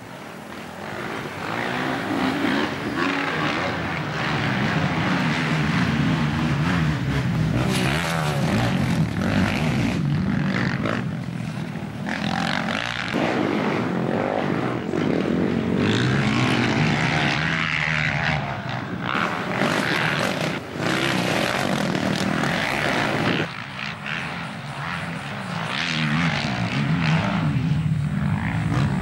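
Racing quad bikes' engines revving hard around a dirt track, the pitch climbing and dropping as the riders accelerate, shift and back off. The sound changes abruptly several times.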